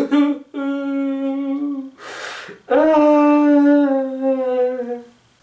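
A man's voice humming two long, drawn-out notes, the second slowly sinking in pitch, with a loud breath between them about two seconds in.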